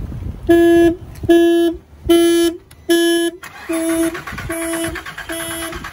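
2001 VW Jetta's anti-theft alarm going off: seven short, steady-pitched honks at an even beat, about one every 0.8 s.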